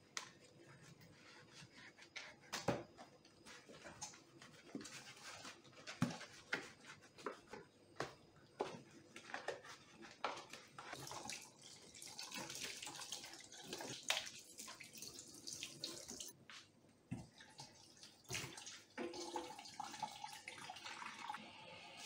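Dishes being washed by hand in a stainless steel sink: scattered clinks and knocks of dishes against the sink and each other, with the tap running and splashing through the middle stretch.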